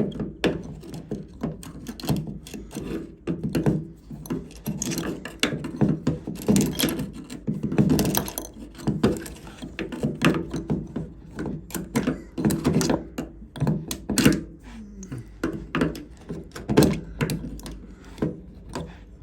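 Irregular knocks, clicks and scraping from rummaging inside a washing machine's drain pump housing to fish out a small object lodged there, a blockage in the pump.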